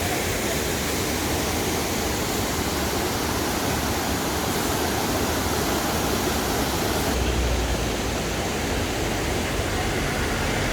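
Waterfall: a steady rush of falling water, with a low rumble joining about two-thirds of the way through.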